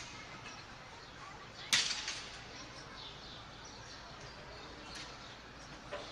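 A single sharp click or crack about two seconds in, with two fainter ones near the end, over a steady low background hiss.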